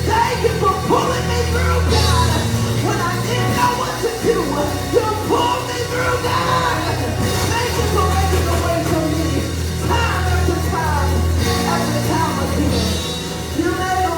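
Gospel worship music: a band with steady bass notes under singing voices.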